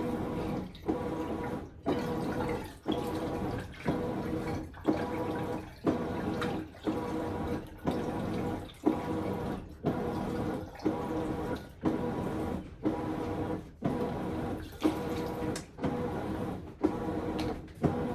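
Vinegar pouring into a bottle as it is filled, the liquid coming in regular surges about once a second.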